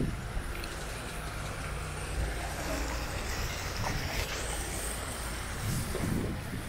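Outdoor ambience dominated by a steady low rumble of wind buffeting the microphone.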